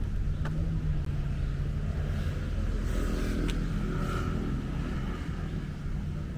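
Wind rumbling and buffeting the microphone, with a motor vehicle passing about two to four seconds in. A couple of sharp clicks are also heard.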